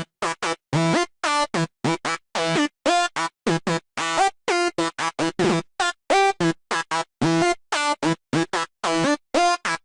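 Sylenth1 software-synth psytrance lead playing a fast run of short, choppy notes, rich and bright, with gaps of silence between them and one note near the middle sliding in pitch. Two oscillators are layered, one pitched an octave up.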